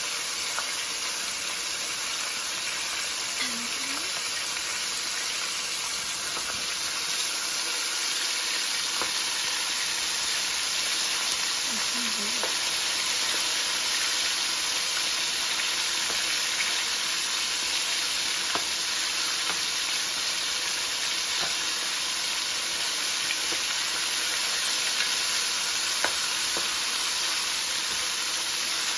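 Flour-dredged chicken pieces frying in hot oil: a steady sizzle with a few small pops scattered through it.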